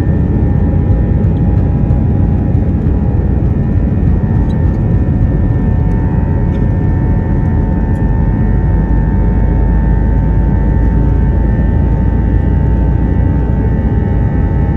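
Airbus A321 jet engines heard inside the passenger cabin: a loud, steady rumble with a steady whine over it.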